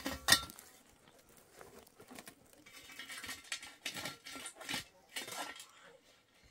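A single sharp clatter, then light, irregular footsteps on gravelly dirt.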